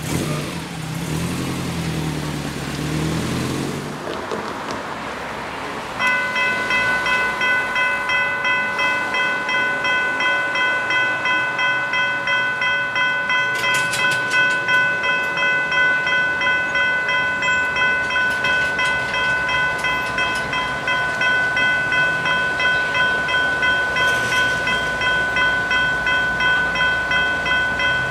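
Road vehicle engine passing at first. Then, about six seconds in, a level crossing's General Signals Type 3 electronic bells start up: a steady ring of several tones, struck in a quick, even pulse, which signals that the crossing has activated and its boom gates are lowering.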